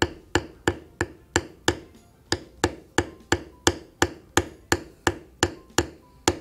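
A mallet striking a large checkered leather beveler in a steady rhythm, about three sharp taps a second with a brief pause about two seconds in. The beveler is being stepped along swivel-knife cuts in a dampened leather belt blank, pressing down the leather inside the lines.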